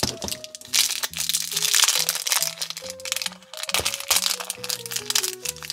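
Crinkling of a shiny plastic wrapper being handled and opened by hand, over background music with a stepping tune.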